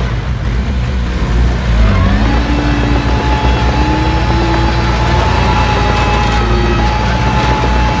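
Bulldozer's diesel engine running hard, a loud low steady rumble. About two seconds in, a whine comes in and rises slowly in pitch.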